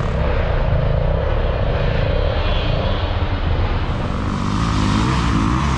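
Dirt bike engines running in a steady drone, with an engine revving near the end.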